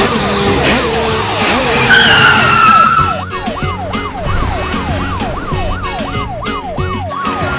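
Siren yelping in fast up-and-down sweeps, about three a second, over background music, with a short falling squeal about two seconds in.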